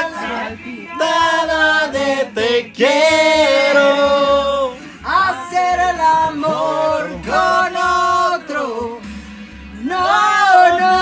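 Singing in a song, with long held notes that slide from one pitch to the next and short breaks between phrases.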